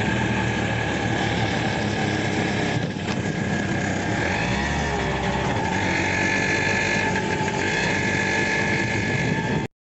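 Auto rickshaw's small engine running as it drives along a road, steady throughout, with a slight change in pitch about halfway through. It cuts off abruptly just before the end.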